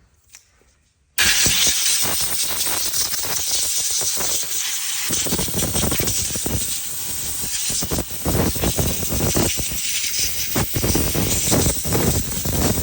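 Compressed air blasting from a blow gun, starting suddenly about a second in and hissing on loudly, rising and falling as it blows grime out of a chainsaw's bar mount and bar-oil ports.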